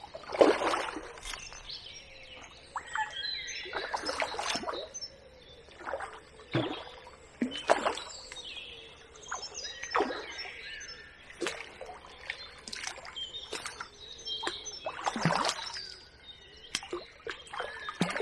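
Water splashing every second or two as a hooked tench thrashes at the lake surface while being played on the rod, with birds singing throughout.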